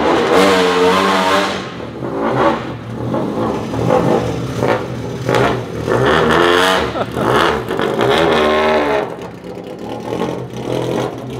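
Modified 1968 Ford Escort Mk1 hill-climb car's engine revving loudly as it drives off, the pitch rising and falling in repeated blips, then dropping away somewhat near the end as it pulls away.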